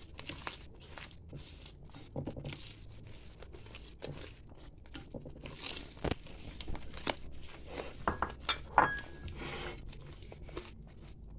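A hand mixing and squeezing soft, sticky fekkas dough in a glass bowl: irregular soft crackling and squishing as the fingers work flour into the wet dough. A few sharper knocks come near the end, the loudest about nine seconds in.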